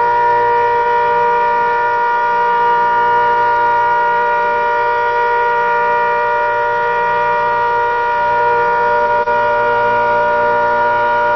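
ACA Hurricane 130 outdoor warning siren sounding a loud, steady tone that holds its pitch without rising or falling.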